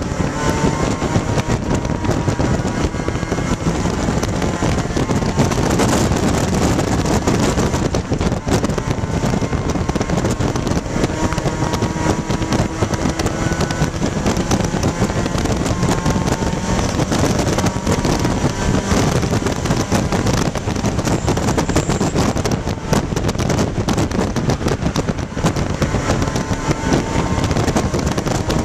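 Inside the cabin of a 1995 Dodge Neon ACR race car, its four-cylinder engine running hard at track speed, the pitch rising and falling with throttle and gears, under heavy wind and road noise.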